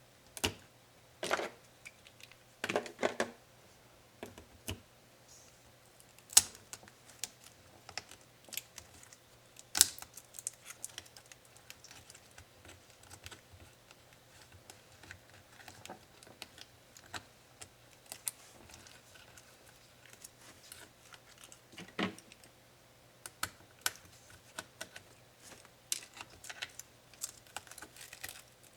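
Irregular clicks, taps and small knocks of Dell Inspiron 7558 laptop parts being handled and pried apart by hand, with a few sharper snaps among them.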